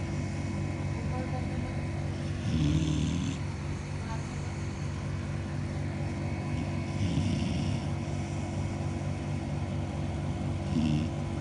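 A sleeping Labrador retriever snoring, with three drawn-out snores about four seconds apart, over a steady background hum.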